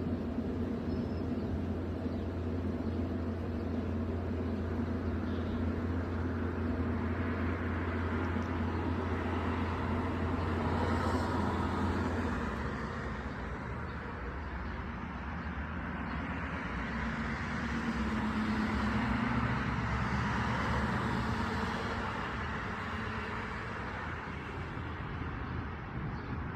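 Road traffic passing, swelling and fading. A steady low hum stops about halfway through.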